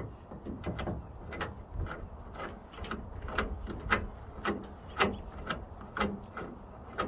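Hand rivet-nut setting tool being unscrewed from a freshly set threaded insert, giving a regular series of sharp clicks about twice a second.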